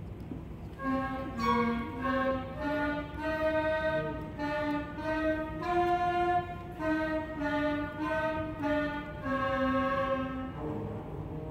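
Elementary-school concert band playing. A single melody line of short, changing notes, led by the flute section, starts about a second in. Lower brass notes come in near the end.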